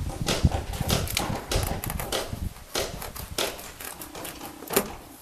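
A knife blade stabbing and sawing through the rubber sidewall of an old car tire, in irregular cutting strokes that grow quieter toward the end.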